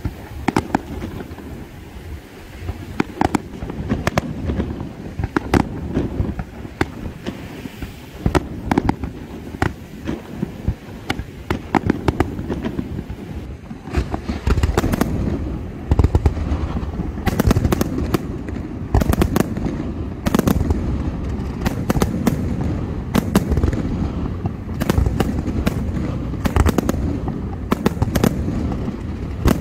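Fireworks display going off: a continual run of sharp cracks and booms, growing denser with a heavier low rumble about halfway through.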